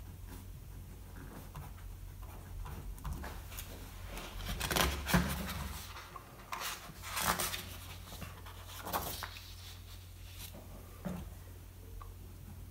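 Pen scratching on paper in short strokes as a word is written, then paper sheets sliding and rustling as the pages are moved, over a faint steady low hum.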